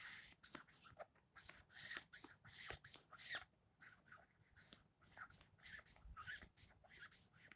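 A coloring tool scratching on paper in quick back-and-forth strokes, a few a second, with brief pauses: a drawing being colored in.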